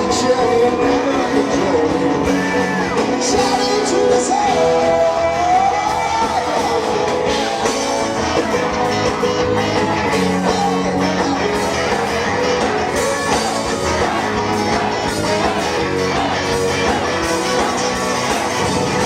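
Rock band playing live through a PA, a loud, dense full-band passage with a pitched line that bends up and down, and some singing or shouting in the mix.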